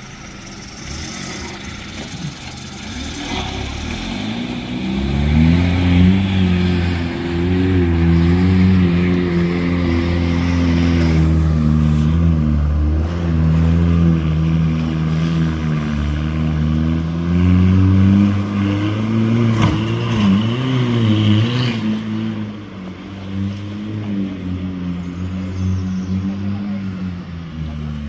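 Off-road 4x4's engine revving hard under load, its pitch rising and falling. It builds up about five seconds in and eases a little near the end.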